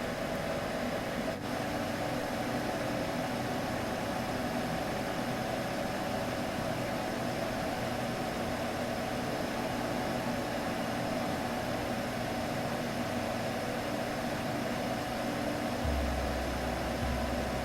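Steady droning hum of several held tones over an even hiss, with no breaks or pitch changes. A faint click comes about a second and a half in, and a deep low rumble joins in near the end, in two or three pulses.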